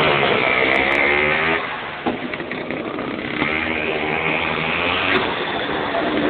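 100cc two-stroke kart engine running at high revs, easing off about a second and a half in and picking up again a couple of seconds later.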